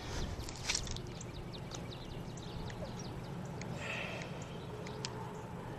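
Steady low rush of river water, with faint scattered clicks and ticks from handling a fish and a hanging scale, a few sharper ones near the start.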